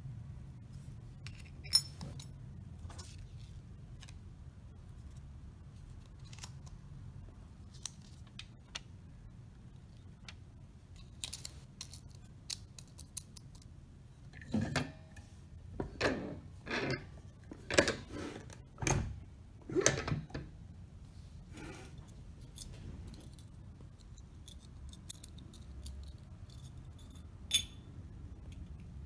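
Handling a Maker-1 sliding button press: scattered small metal clicks as button shells and backs are set into its steel dies, and a run of five or six louder scraping clacks in the middle as the die base is slid across the base plate.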